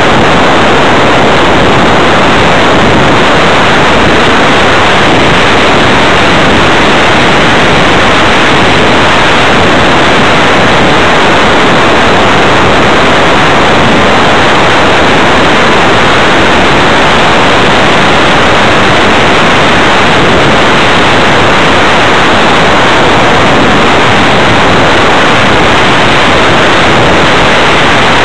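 Loud, unbroken rush of airflow over the onboard keychain camera's microphone on an RC flying wing in flight. No separate motor tone stands out from it.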